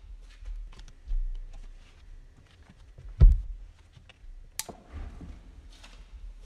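Scattered clicks and knocks of a person moving about and handling things, with one heavy thump about three seconds in and a sharp click about a second and a half later.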